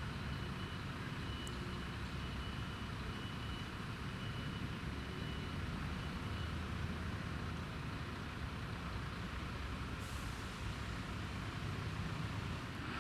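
Fire engine's diesel engine running low and steady, with a high reversing beeper sounding through the first half and stopping, and a short air hiss about ten seconds in.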